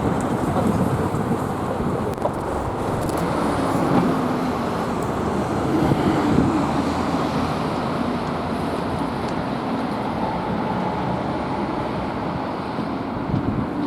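Steady road traffic noise: a continuous wash of cars passing.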